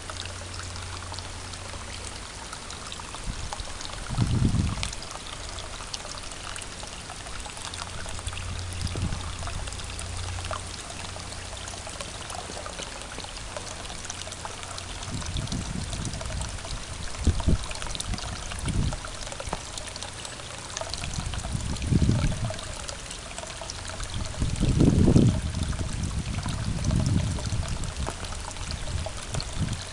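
Water running steadily into a small backyard pond tub, a continuous pouring trickle. Occasional low rumbles rise over it, the loudest about 25 seconds in.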